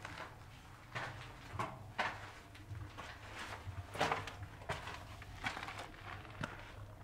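Footsteps of a person walking on a sandy, stony trail, a short crunch about once or twice a second at an uneven pace, the strongest step about four seconds in.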